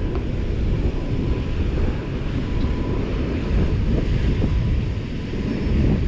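Wind buffeting the microphone: a steady rumble with no distinct events.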